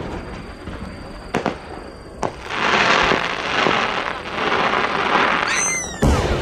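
10-gō (30 cm) aerial firework shell: a couple of sharp pops, then crackling and sizzling from its glittering rising tail, a brief high whistle, and a loud deep boom near the end as the shell bursts.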